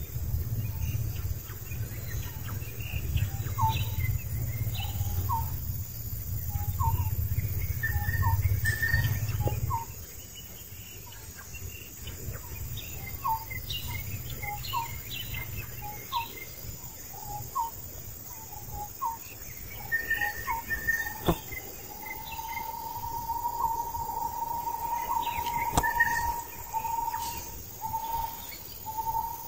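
Outdoor forest ambience: a bird repeats short chirping notes about once a second, and a long steady tone is held for several seconds in the last third. A low rumble fills the first ten seconds and then stops.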